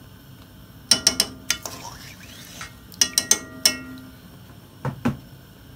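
A metal utensil tapping against a metal cooking pot as butter is knocked off it into the pot: a quick cluster of ringing clinks about a second in, another about three seconds in, and a duller knock near the end.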